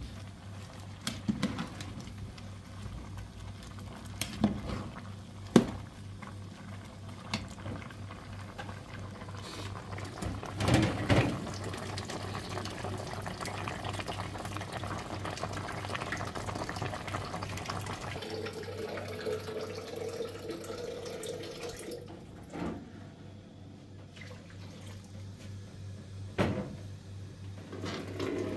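Metal ladle stirring a large steel pot of red beans in water: several sharp clinks of the ladle against the pot, a splash, then a steady stretch of water sound lasting about ten seconds.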